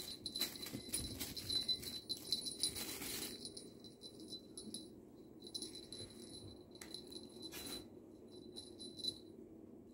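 Jingling and rattling from a feather wand cat toy as it is dragged across the carpet and batted by kittens, with a high, thin ringing that breaks off and returns, and light scuffling clicks.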